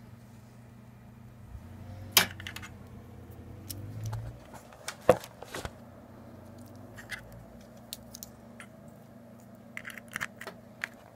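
Handling noise: scattered sharp clicks and knocks of plastic and metal parts, with two loud knocks a few seconds apart and a quick run of clicks near the end as a USB plug meets a small metal USB device. A steady low hum runs underneath.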